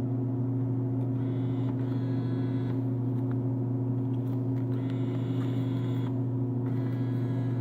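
Steady electrical hum of a vending machine. Over it, the bill acceptor's small motor whirs in three short spells: about a second in, around five seconds in, and near the end, as it draws in the taped banknote and pushes it back out.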